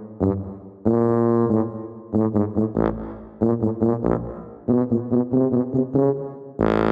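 Background music: a melody of short, separate notes with a few longer held notes.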